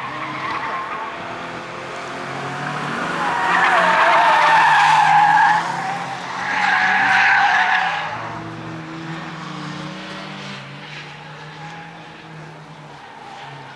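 Skoda Fabia driven hard around a circuit, its engine running steadily under load, with two long bouts of tyre squeal as it slides through corners: the first from about three seconds in, the second around seven seconds in.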